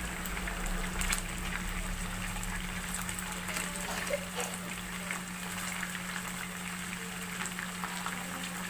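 Chicken pieces sizzling in oil and sauce in a frying pan: a steady crackling fry with scattered sharper pops and clicks. A steady low hum runs underneath.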